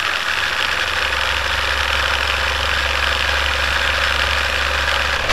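Film projector running: a steady mechanical clatter and whir over a low hum.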